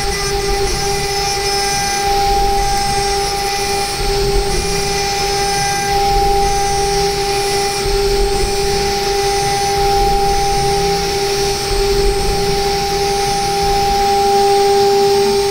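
CNC milling spindle turning a 6 mm single-flute ball end mill at 24,000 rpm, a steady high whine with an overtone, while it takes a light parallel finishing pass across an aluminium block.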